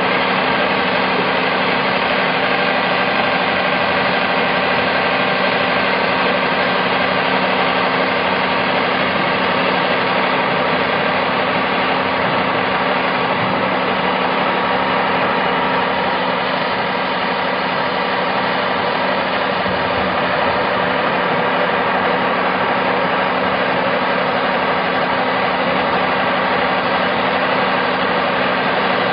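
An engine running steadily at constant speed, with an even low hum that does not change.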